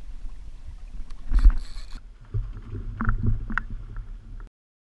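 Wind and water noise around a kayak on choppy water, with a loud knock about a second and a half in and a few sharp clicks a little after the three-second mark. The sound cuts off suddenly near the end.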